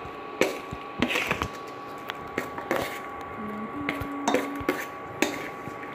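Metal spoon clinking and scraping against a stainless steel mixing bowl while tossing sliced pork sausage in a wet dressing, in irregular knocks.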